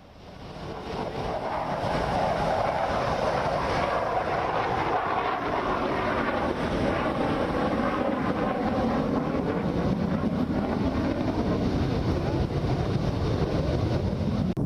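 Jet aircraft engine roar, fading in over the first couple of seconds and then holding steady, with its pitch slowly drifting.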